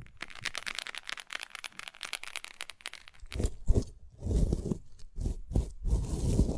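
A large bean pod being opened by hand, its tough husk crackling and tearing with many fine snaps. About three seconds in, the sound turns to dull handling thumps.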